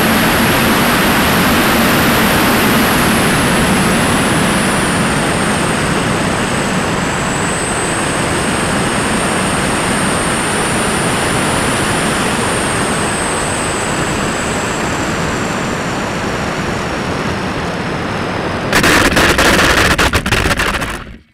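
Onboard audio of a Mini Talon RC plane gliding in to land: loud wind rush over the airframe with a thin high whine that slowly falls in pitch. About nineteen seconds in, the plane touches down and skids across hard, cracked dry lake-bed mud with a loud rattling scrape for about two seconds before it stops.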